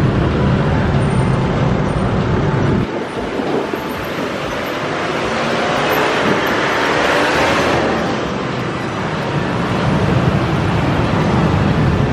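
Road noise on a motorcycle ride: a low rumble drops away about three seconds in and comes back near the end, while a broad rushing sound, like passing traffic, swells to a peak a little past halfway and fades.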